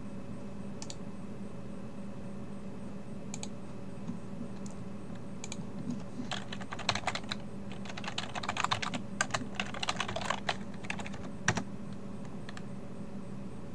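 Typing on a computer keyboard: a few scattered key presses, then a quick run of keystrokes from about six to eleven seconds in, ending in one harder press of the Enter key. A low steady hum runs underneath.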